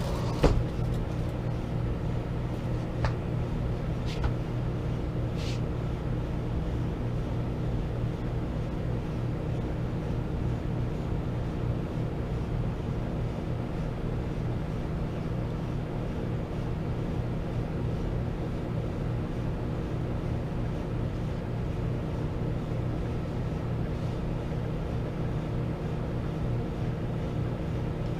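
Microwave oven running, a steady electrical hum with a click about half a second in.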